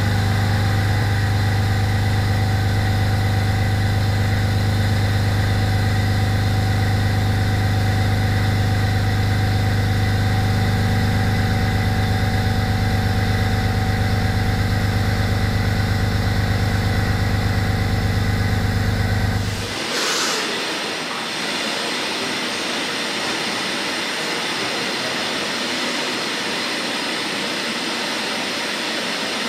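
A steady deep hum, then about two-thirds of the way through a sudden change to the hiss and high steady whine of a horizontal machining centre at work on a cast pump housing.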